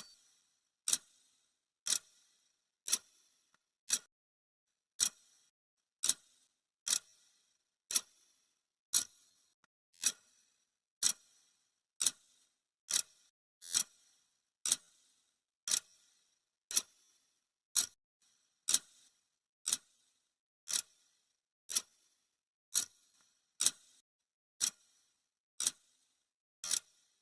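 Clock-tick sound effect marking off the seconds of a countdown: one sharp tick every second, steady and even.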